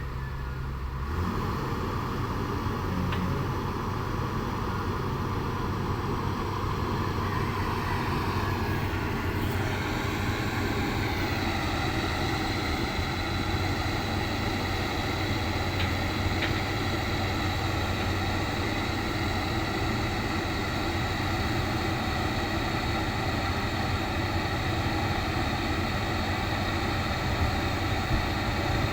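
Backhoe's diesel engine running steadily; about ten seconds in its pitch rises as the revs go up, then holds at the higher speed.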